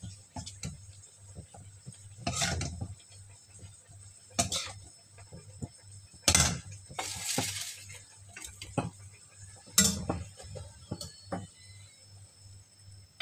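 A long steel spoon scraping and knocking against a steel kadhai and a ceramic bowl as thick chutney is scooped out: irregular clinks and scrapes, the sharpest about 2, 4½, 6½ and 10 seconds in, over a steady low hum.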